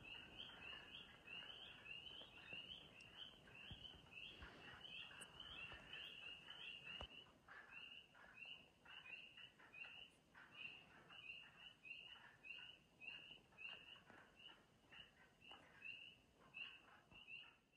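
Faint chorus of frogs calling: short, high, slightly rising peeps repeated two or three times a second.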